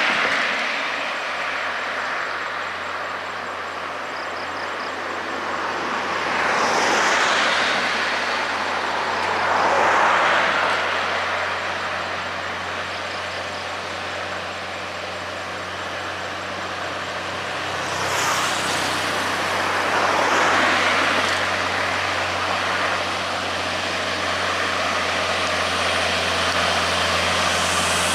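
Highway traffic passing one vehicle after another, each swelling and fading, over the steady low drone of a Hino 500 diesel truck's engine that grows louder as the truck draws near. A short high hiss comes about two-thirds of the way through.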